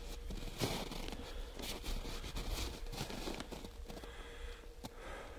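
Boots crunching and scuffing in snow, with the rustle of snow-camo clothing and coyote fur as the dead coyote is grabbed and lifted by hand: an irregular run of crinkles and scuffs.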